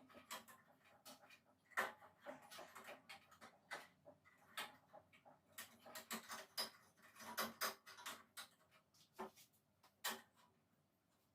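Faint, irregular clicks and knocks of hands handling the parts of a small benchtop bandsaw during a blade change, with one sharper knock about two seconds in.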